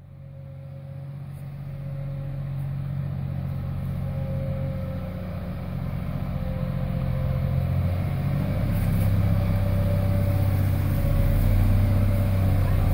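Wheel loader's diesel engine running under load, growing steadily louder as the machine comes closer.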